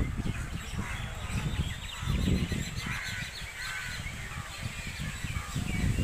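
Many birds calling and chirping at once, short overlapping calls, as a flock settles to roost in a tree in the evening. A low rumble runs underneath.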